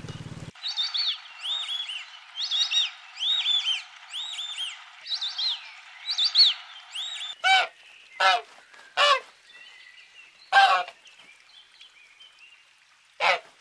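Ducklings peeping: many quick, high-pitched, arching peeps overlapping one another. From about halfway through, white domestic geese give five loud, short honks, a second or more apart.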